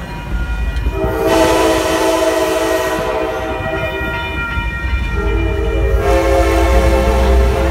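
Amtrak locomotive air horn sounding two long chord blasts for a street grade crossing, over the low rumble of the moving train. The second blast cuts off abruptly.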